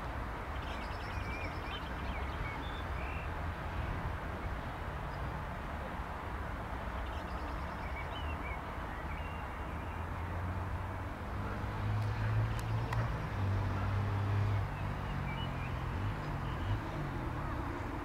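Cessna CitationJet CJ1's twin Williams FJ44 turbofans running at taxi power in the distance, a steady hissing rumble, with a low hum swelling for a few seconds around the middle. Birds chirp briefly over it.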